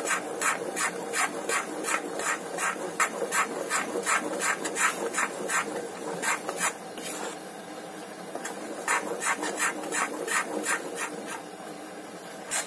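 Metal spatula scraping and stirring semolina and gram flour in an iron kadhai, about three strokes a second, over the sizzle of the mixture roasting in ghee on a low flame. The stirring stops for about two seconds in the middle, leaving only the sizzle.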